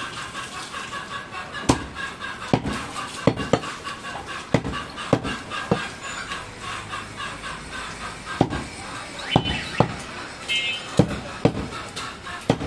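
About a dozen sharp, irregularly spaced knocks of a butcher's knife striking a wooden log chopping block while cutting goat meat, over background voices.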